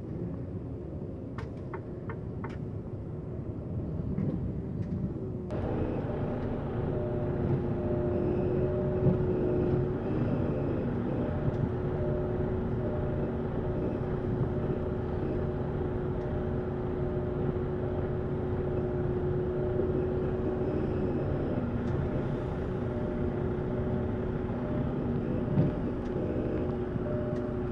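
Truck engine of a Heizohack truck-mounted wood chipper running steadily, heard from inside the cab. About five seconds in it gets louder and a steady whine joins the drone.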